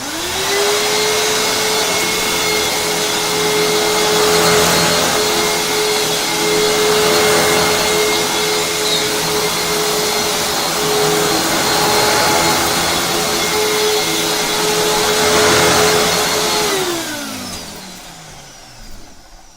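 Eureka vacuum cleaner switched on and running steadily with a constant motor whine, then switched off, its pitch falling as the motor spins down.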